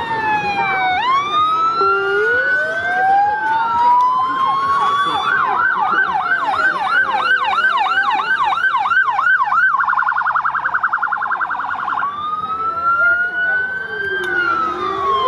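Electronic sirens of fire engines, more than one sounding at once. Slow rising and falling wails give way, about five seconds in, to a fast yelp of about three sweeps a second. That turns into a rapid warble for about two seconds, then back to slow wails.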